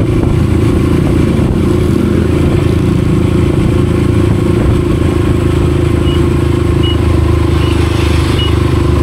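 Motorcycle engine running steadily at low speed while riding slowly. Short high beeps repeat about every three-quarters of a second near the end.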